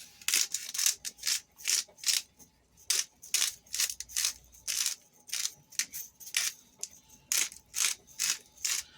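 Pepper mill being twisted over the pan, a steady series of short, crisp grinding crunches, about two to three a second.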